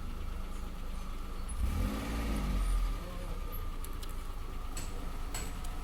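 Car running steadily, with a louder pitched sound that rises and falls in pitch for about a second near the middle.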